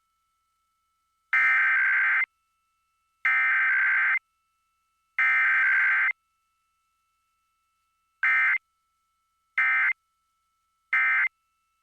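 Emergency Alert System SAME data bursts: three one-second bursts of warbling data tone make up the alert header, then three short bursts make up the end-of-message code. There is no attention tone between them, as in a weekly test.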